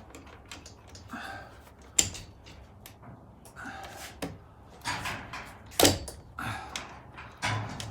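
Irregular metal knocks and clanks from handling a roller-door motor and its mounting hardware, the sharpest about two seconds and six seconds in.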